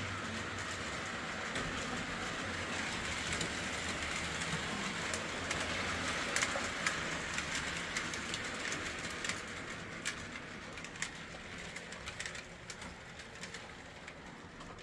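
Postwar Lionel O-gauge locomotive with a Pullmore motor running on three-rail track: a steady motor-and-gear whir with scattered clicks from the wheels on the rails. It gets gradually quieter as the Variac voltage is turned down toward about five volts, where the engine stops.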